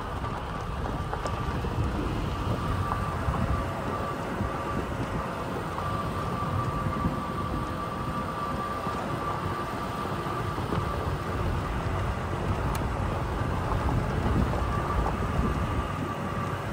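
Toyota Tacoma rolling slowly down a dirt and gravel road: a steady low rumble of tyres over gravel and loose stones, with a faint steady whine and an occasional small click.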